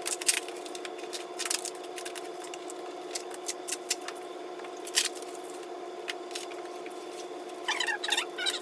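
Cardboard shipping box being opened by hand: tape being cut and the flaps and packing handled, giving scattered clicks, scrapes and crinkles over a steady hum. Near the end some high wavering chirps come in.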